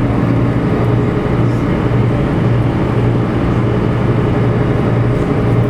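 Steady low drone of a moving vehicle's engine and running noise, heard from on board, with a constant low hum throughout.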